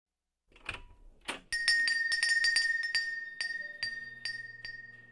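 A small shop-door bell jingling: a quick run of bright clinks over one ringing tone, slowing and fading out over about three seconds. Two soft bumps come just before it, like a door being opened.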